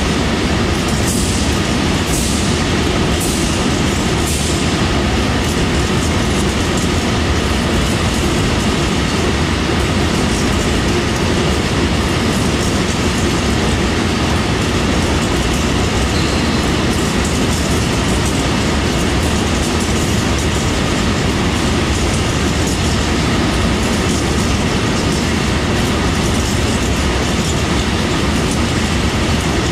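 Train running on the track: a steady, loud rumble of wheels on rail, with four sharp clicks about a second apart near the start.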